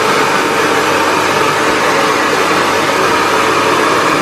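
Handheld hair dryer running steadily, blowing on a wet plush toy's fur: a loud, even rush of air.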